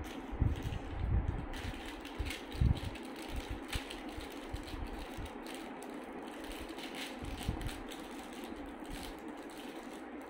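Plastic candy wrappers crinkling and crackling irregularly as small chocolates are unwrapped by hand, with a few dull thumps in the first three seconds.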